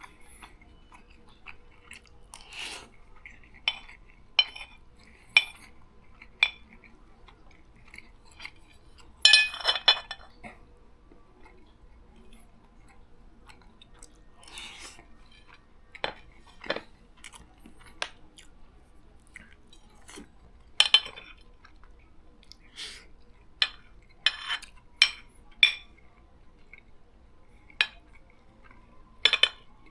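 Someone eating: cutlery clinking and scraping on a plate at irregular intervals, with chewing in between. A few longer scrapes come about 9, 14 and 21 seconds in.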